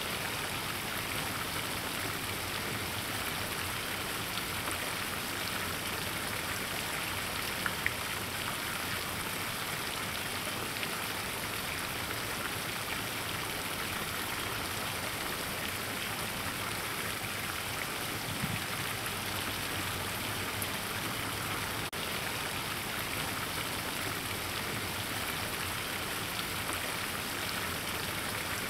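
Steady rain falling, an even hiss with fine pattering drops.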